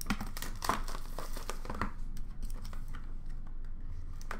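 Trading-card box packaging crinkling and rustling as the box is opened and the cards inside are handled. There is a quick run of rustles and clicks in the first two seconds, and they come more sparsely after that.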